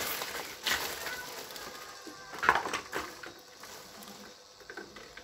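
Plastic parts of a baby walker knocking and clattering as it is assembled and set on its frame: a few sharp knocks, the loudest about two and a half seconds in.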